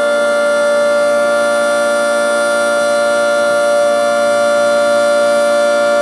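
Federal Signal 3T22 three-tone electromechanical tornado siren sounding a steady chord at full speed, with no rise or fall in pitch: a steady alert signal.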